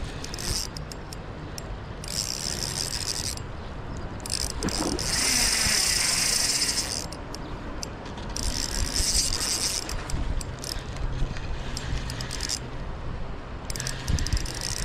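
Fishing reel being cranked in short spells, a high whirring hiss that comes and goes five times, the longest spell about two and a half seconds.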